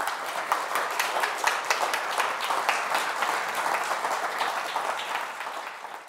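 Audience applauding: many hands clapping together in a dense, even patter that fades out near the end.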